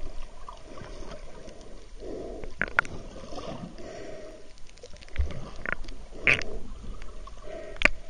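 Muffled underwater sound picked up by a camera below the surface: water sloshing and bubbling in uneven surges, with a few short sharp pops and clicks.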